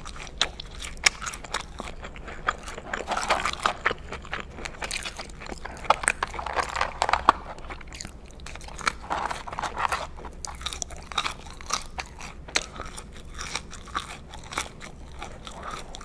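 Close-miked eating sounds: a person chewing McDonald's french fries, with frequent short, sharp crunches and clicks at an irregular pace.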